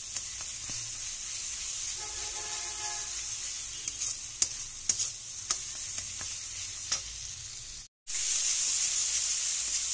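A masala paste of onion, garlic, ginger and green chilli, with ground spices, sizzling steadily as it fries in oil, while a spatula stirs it and scrapes and taps the pan in sharp clicks. It is being cooked down until the oil separates. Near the end the sound cuts out for a moment, then the sizzle comes back louder.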